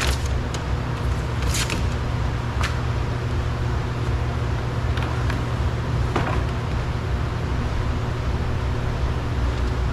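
Steady low hum, like a running motor or traffic, with a few light clicks and taps of car door parts being handled, mostly in the first half.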